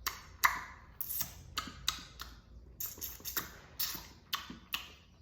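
Wet, open-mouthed chewing: a string of sharp lip-smacking clicks, about two or three a second at an uneven pace.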